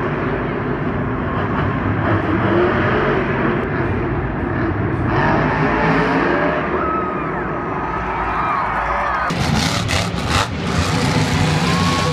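Monster truck engines running loud and hard, with crowd noise behind. The sound changes suddenly about five and nine seconds in, where the clips are cut together.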